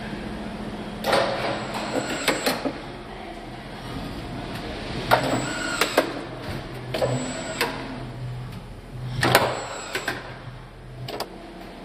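Robotic assembly cell at work under a car body: irregular mechanical clicks and clunks, about ten of them, the loudest about nine seconds in, over a low motor hum that sets in about halfway through.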